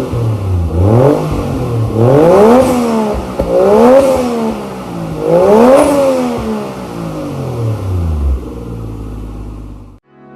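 Yamaha Axis Treet scooter's 125cc single-cylinder four-stroke engine revved up and down several times with the throttle, then settling back to idle. The sound cuts off suddenly near the end.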